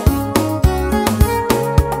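Instrumental Ethiopian gospel song (mezmur) played on a Yamaha PSR-S975 arranger keyboard: a melody and chords over a steady programmed drum beat and a bass line.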